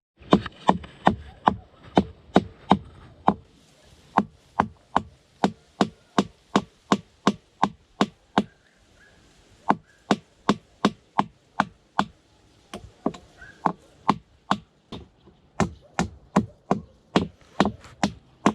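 Hammer blows on wood, fast and even at about four strikes a second, stopping briefly twice before carrying on.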